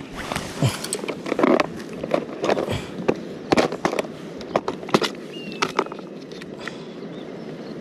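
Irregular close handling noise: sharp clicks, taps and brief rustles, most of them in the first five seconds, over a steady low rumble.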